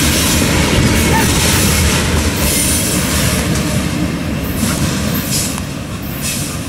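Freight train's covered hopper cars rolling past on the rails: steady wheel-on-track noise that eases a little near the end as the tail of the train moves away.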